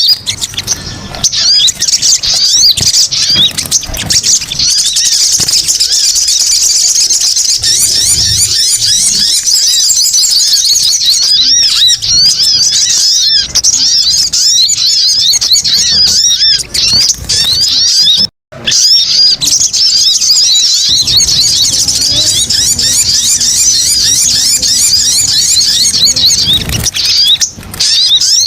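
Sogon (sogok ontong) birds chattering: a dense, fast twittering of many overlapping high-pitched chirps and trills, played as a bird-lure recording. It breaks off completely for a split second about eighteen seconds in, then carries on.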